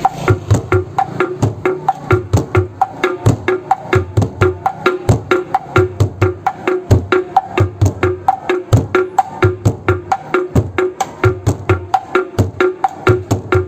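Bedug drums and kentongan slit drums beaten together in a fast, steady takbiran rhythm, about four to five strokes a second. Deep booming drum hits mix with sharp, pitched wooden knocks.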